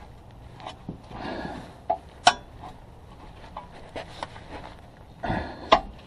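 Sharp metallic clicks and knocks of a hand tool working on bolts under a car. Two of the clicks, about two and a half seconds apart, are the loudest, and there are a couple of short scraping noises.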